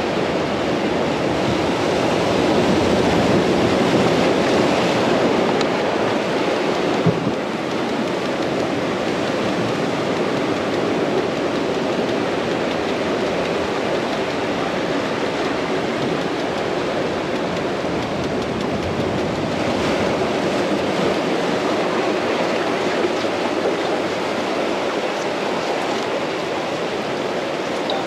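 Ocean surf washing steadily onto the beach, swelling a little a few seconds in, with a single brief knock about seven seconds in.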